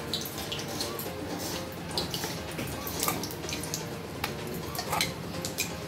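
Rolling out luchi dough with a wooden rolling pin on a wooden board: scattered light clicks and taps over a steady hiss.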